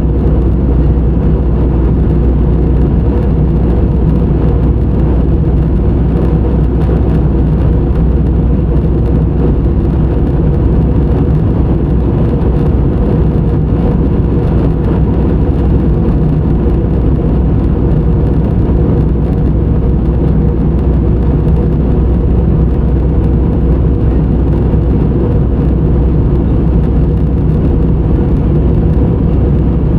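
Airliner cabin noise in flight: the engines and rushing air make a loud, deep, even drone that does not change.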